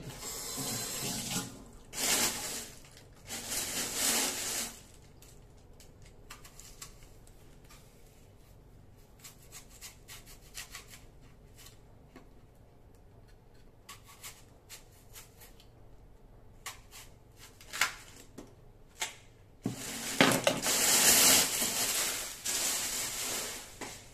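Water from a kitchen tap running in three short spurts, then a longer run of about four seconds near the end, with small clicks and knocks in between.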